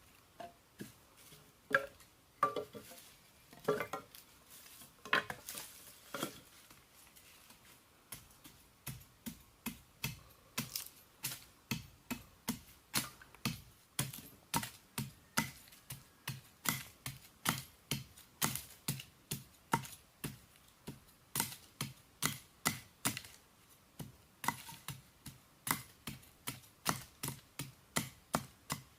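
Repeated sharp chopping strikes. A few scattered knocks come first, then from about eight seconds in a steady rhythm of roughly two to three strikes a second.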